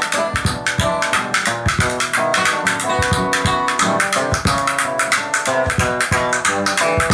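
Background music with plucked guitar and bass over a steady drum beat.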